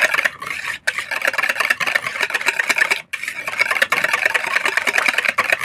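Hand wire whisk beating fresh cream and curd in a bowl: a fast, steady scraping rattle of the wires against the bowl, stopping for a moment twice.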